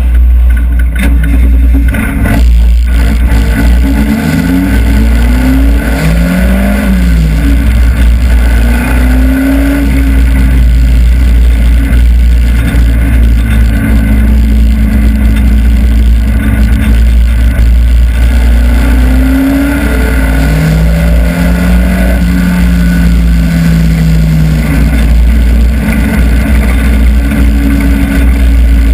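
Hobby stock race car's engine heard from inside the cockpit, running hard at racing speed, its pitch rising and falling several times as the driver gets on and off the throttle, over a heavy steady low rumble.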